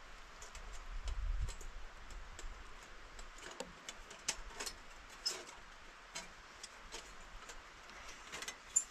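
Scattered faint, sharp clicks and taps at irregular spacing, with a low rumble in the first second and a half.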